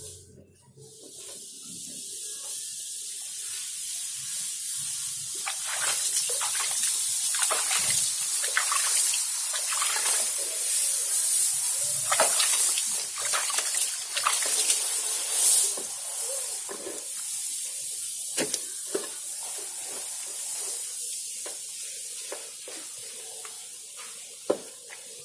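Water spraying in a steady hiss, with irregular splashes and clicks through the middle stretch before the spray thins out near the end.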